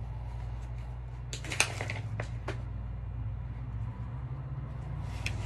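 Riddell football shoulder pads being handled: a cluster of clicks and rustles from the straps and plastic shell about one and a half to two and a half seconds in, and a few more near the end, over a steady low hum.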